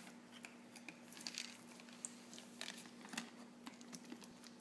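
Faint, scattered clicks and smacks of a baby chewing and mouthing sweet potato puffs, over a faint steady hum.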